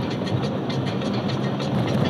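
Vehicle on the road: a steady engine and road rumble with many small rattles and clicks.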